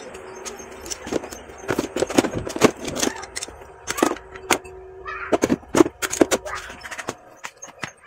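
Hand tools and metal parts being handled, a string of irregular clinks, knocks and rattles.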